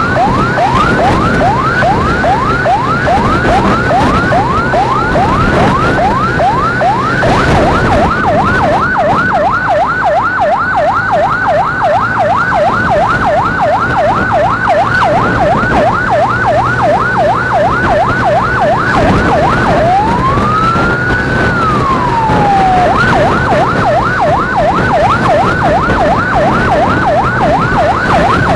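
Electronic emergency siren on a fast yelp, sweeping up and down several times a second. About two-thirds of the way through it switches to one slow rising-and-falling wail, then goes back to the yelp. Engine and road noise run beneath.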